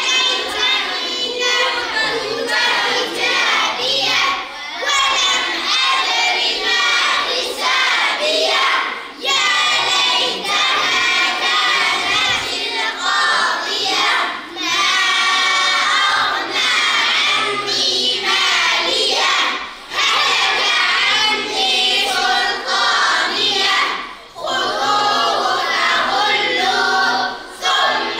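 A group of children reciting the Quran in unison, chanting verse by verse with a short breath-pause between phrases every few seconds.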